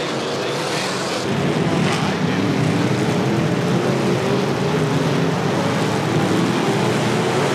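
A pack of IMCA Modified dirt-track race cars running hard, their V8 engines at high revs in a steady, overlapping drone that gets louder about a second in.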